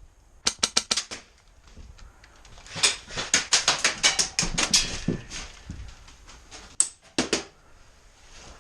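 Airsoft guns firing rapid strings of sharp shots in three bursts: a short burst about half a second in, a longer burst of well over a dozen shots from about three to five seconds, and a few more shots near the end.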